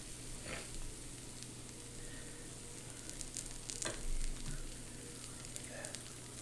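Food sizzling steadily on an electric grill-and-hot-pot combo, with two sharp clicks about three seconds apart.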